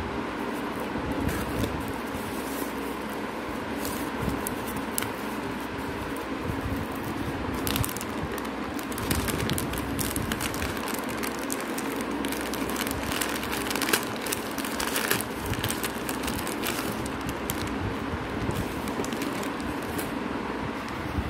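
A cardboard box and a plastic bag of slate pencils being handled: scattered crinkles, scrapes and clicks as the cardboard flaps are folded back and the bag is pulled out, over a steady background hum.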